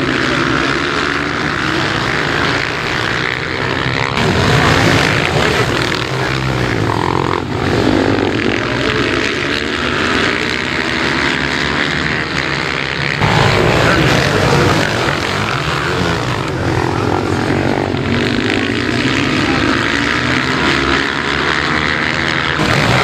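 Several supermoto racing motorcycles at full race pace, their engines revving hard, the pitch sweeping up and down as they accelerate, shift and go past.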